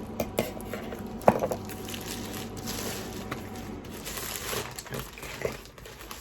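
A cardboard parcel being cut open and unpacked: packaging crinkling and rustling, with scattered clicks and one sharp snap a little over a second in.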